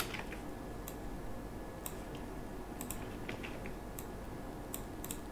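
Scattered light clicks of a computer mouse and keyboard as a drawing is selected, copied and pasted on screen, some in quick pairs, over a faint steady hum.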